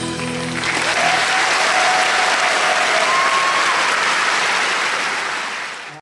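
The final held chord of the live music dies away. About half a second in, a concert audience breaks into applause, which fades out near the end.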